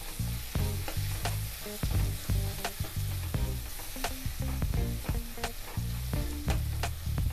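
Slotted metal spatula stirring and scraping a sizzling onion-tomato masala in a metal kadai, sautéing it with freshly added red chili powder; the spatula knocks against the pan in a loose rhythm, roughly every second or less.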